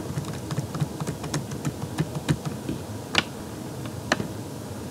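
Light, irregular clicking at a computer, several small clicks a second, with two sharper clicks about three and four seconds in.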